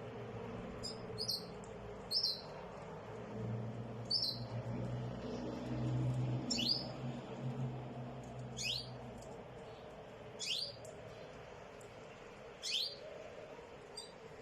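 A bird calling in short, high chirps, one every second or two, over a faint steady background hum.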